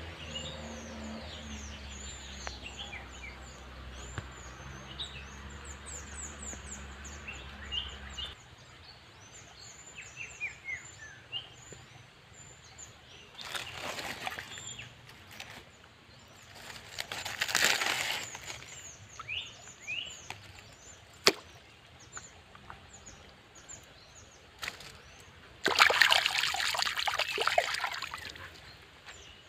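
Outdoor ambience of many high-pitched chirps repeating throughout, over a low rumble that stops about eight seconds in. Three bursts of rustling and scraping from hands searching through dry leaves and stones break in, the loudest near the end.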